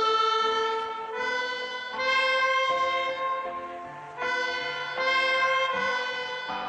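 Instrumental music: held chords with no singing, a new chord coming in every one to two seconds.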